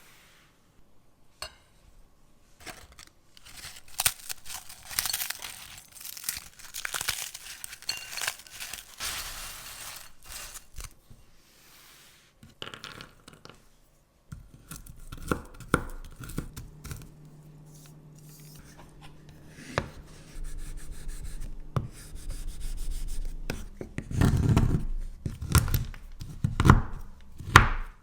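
Kitchen preparation sounds: food packaging torn open and crinkled, with scraping. Later comes a low steady hum, then several loud knocks near the end.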